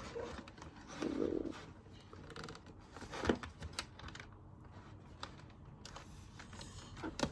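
Small plastic toy game pieces clicking and clattering as they are handled and fitted into holes in the toy, with a few sharper clicks.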